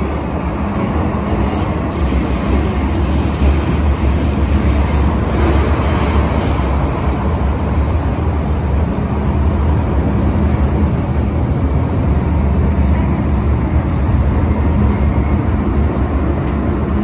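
MTR M-train running between stations, heard from inside the carriage: a steady rumble of wheels on the track with a low hum.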